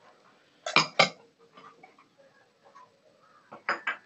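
Ceramic serving bowl knocking against a steel plate as food is tipped out: two sharp clinks close together about a second in, and another pair near the end.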